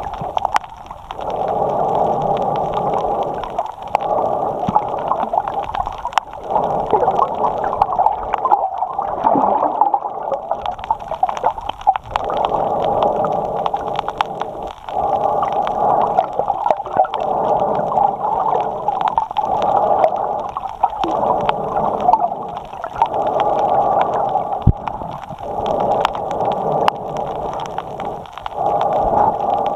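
A snorkeler breathing in and out through the snorkel, heard loudly by a camera mounted on that snorkel. The breaths come in a steady cycle, with short breaks about every two seconds.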